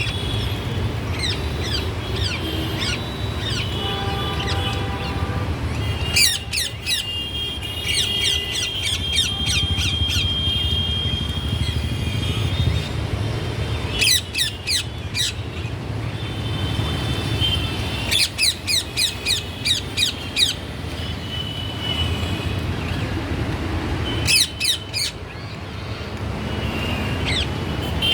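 Parrot calling in several bouts of rapid, short, high chirps and squawks, with a few held whistle-like notes between them, over a steady low rumble.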